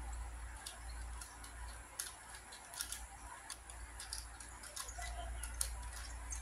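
Ju Xing keychain 3x3 puzzle cube being turned quickly by hand: irregular plastic clicks and clacks, several a second, as its layers snap round during a solve.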